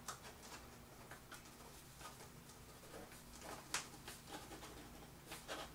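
Faint, scattered scratching of an anti-gravity ballpoint pen writing on paper while held upside down.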